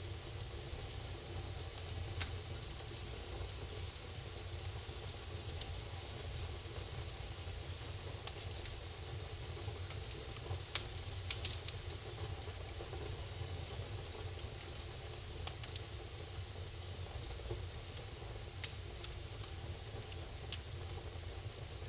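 Wood fire burning in a fireplace: a steady hiss and low rumble with scattered sharp crackles and pops, a few louder ones in a cluster around the middle.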